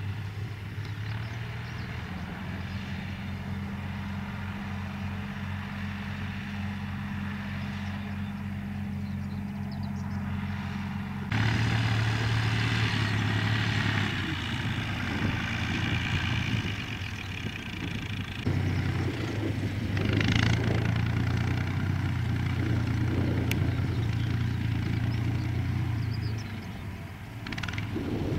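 Universal 445 DT tractor's diesel engine running steadily as the tractor drives across the field with its mounted sprayer. The sound steps up abruptly about eleven seconds in and again around eighteen seconds.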